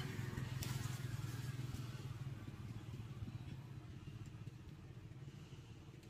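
A motor vehicle's engine running steadily with a low hum that gradually fades away, with a faint click a little under a second in.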